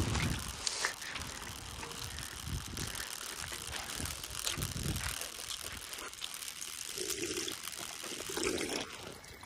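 Water running from a park drinking-fountain spout: a steady splashing hiss that stops near the end, with a few low bumps along the way.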